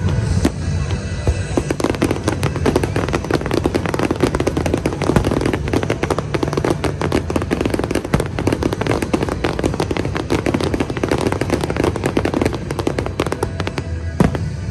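Aerial fireworks going off in a dense, continuous barrage of rapid bangs and crackles, with music playing underneath.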